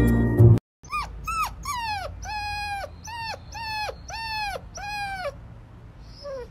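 The end of a short chime jingle, then a Yorkshire terrier puppy giving a quick run of short, high-pitched yips and whines, each dropping in pitch at the end.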